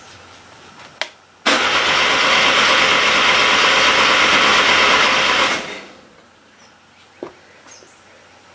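A click about a second in, then a Mazda RX-7 rotary engine turned over by its starter for about four seconds without firing before the cranking dies away.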